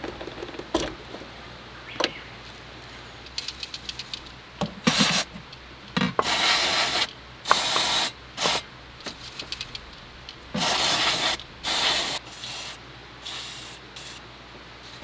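Hand work on a car engine during an alternator swap: scattered clicks and knocks, a quick run of ticks, and several short rasping, scraping noises of metal parts and tools being handled.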